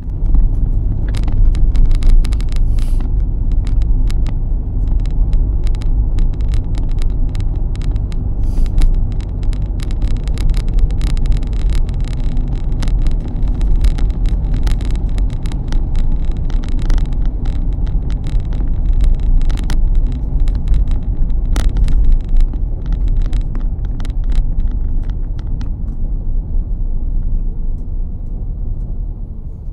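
Road noise inside a moving car: a loud, steady low rumble of tyres and engine, with frequent small clicks and rattles over it. It eases off over the last few seconds as the car slows behind traffic.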